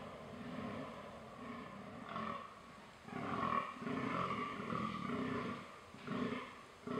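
Fallow buck giving its rutting groans: a run of deep, belching grunts about two a second from about three seconds in, then one more short grunt near the end.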